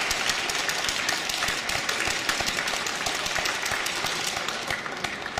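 Spectators applauding: many hands clapping unevenly, thinning and fading toward the end.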